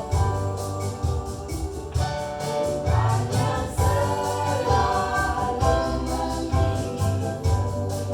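A choir singing a gospel worship song with a band, over a steady beat and bass.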